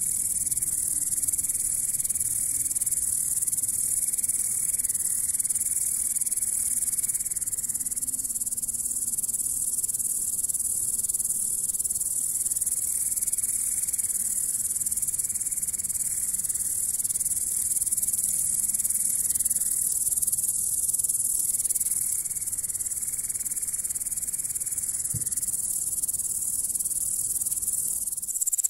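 Bush-cricket stridulating: a continuous high-pitched buzzing song that goes on without a break.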